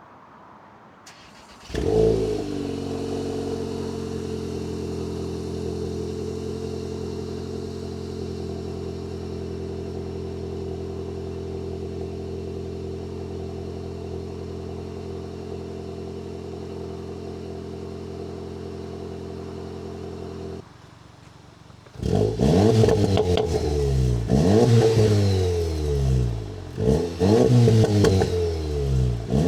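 Seat Leon Cupra ST's 2.0 TSI turbocharged four-cylinder, breathing through a Milltek non-resonated cat-back exhaust, cold-started about two seconds in with a short flare, then idling steadily. Near the end it is blipped several times, each rev rising and falling and much louder than the idle.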